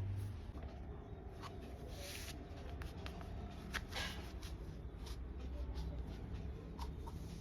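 Quiet handling noise: scattered light clicks and rustling over a low hum.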